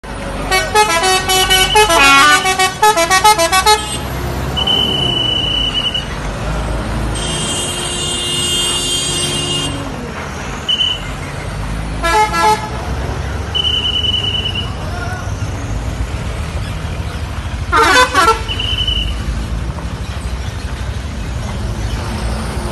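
Pandawa 87 coach's multi-tone musical 'telolet' horn playing a quick tune of changing notes for the first few seconds, then a long held horn chord and shorter horn blasts, over the bus's low engine running as it manoeuvres slowly. Several short, high, steady whistle blasts come in between the horn calls.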